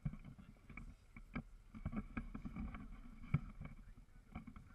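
Tour catamaran under way: a steady low engine drone with a faint high whine, broken by irregular low thumps against the microphone.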